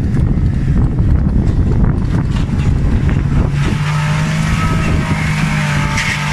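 Mini truck's small engine running under load as it crawls up a steep rocky dirt slope, with wind buffeting the microphone at first; about three and a half seconds in the engine settles into a steady, even drone.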